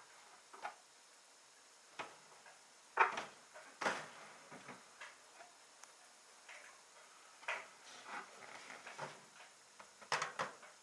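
Faint, irregular light clicks and taps, about a dozen, with a quick cluster near the end.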